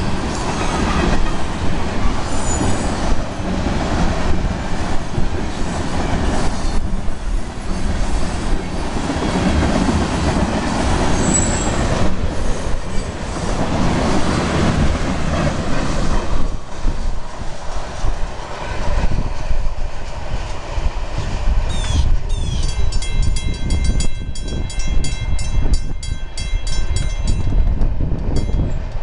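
Florida East Coast Railway freight train of tank cars rolling through a grade crossing: a steady rumble and clatter of steel wheels on rail with a brief high wheel squeal, easing off as the last cars pass a little past halfway. Near the end a ringing tone repeats in quick even strokes, like a grade-crossing bell.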